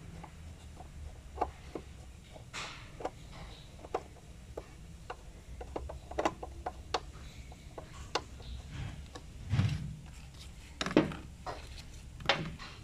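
Scattered small clicks, taps and scrapes of a screwdriver and fingers on the hard plastic parts of a 2020 Hyundai Elantra headlight housing as the repaired high-beam actuator is fitted back into place, with a few louder knocks in the last few seconds.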